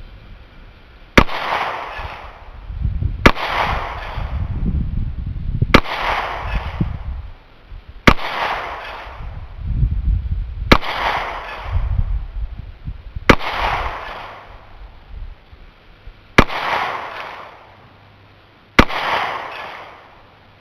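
Glock 26 9mm pistol firing eight single aimed shots of 124-grain Blazer aluminum-case ammunition, one every two to three seconds. Each sharp crack is followed by a short fading echo.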